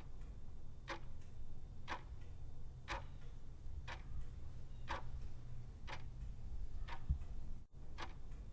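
A clock ticking steadily, about one tick a second, over a low steady rumble.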